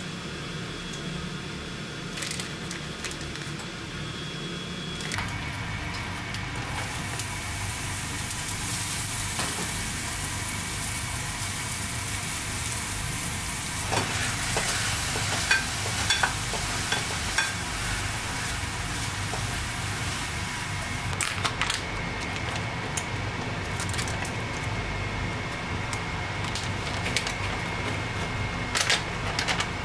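Sliced mushrooms frying and sizzling in a frying pan, starting about five seconds in, while a wooden spatula stirs them and knocks against the pan now and then.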